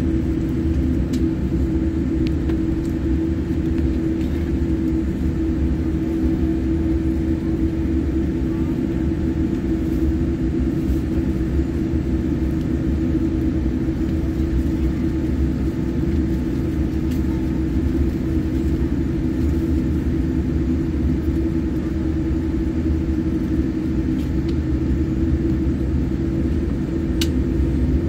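Jet airliner cabin noise while taxiing: a steady low rumble of the engines and rolling airframe, with a steady hum over it and a few faint ticks.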